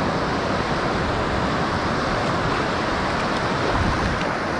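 Steady rush of shallow surf washing around the legs, with wind on the microphone.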